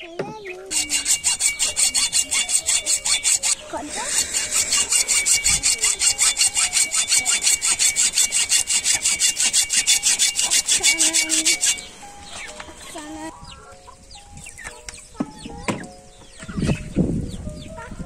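Hacksaw sawing through a raw lamb leg steak and its bone in fast, even back-and-forth strokes. It pauses briefly near four seconds and stops at about twelve seconds, followed by a few low knocks.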